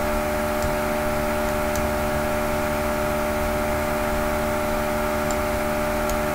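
Steady electrical buzzing hum with hiss, an even stack of tones that never changes: noise in the recording itself, the bad sound the uploader apologises for.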